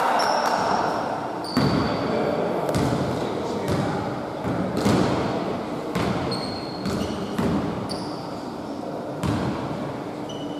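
A basketball bouncing on a hardwood gym floor, irregular thuds about a second apart, echoing in the hall, with short high squeaks of basketball shoes on the floor.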